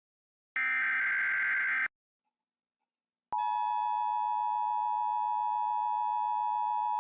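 Emergency Alert System signalling: a buzzy digital data burst of the SAME header, about a second and a half long, then a gap of silence. After that the steady two-tone EAS attention signal starts a little past three seconds in and holds unbroken.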